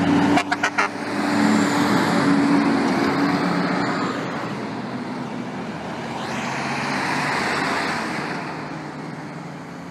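Traffic passing on a busy road: a diesel dump truck's engine running as it drives by, then cars and a semi tractor going past. The sound cuts out briefly a few times about half a second in, swells again a little after the middle, then fades toward the end.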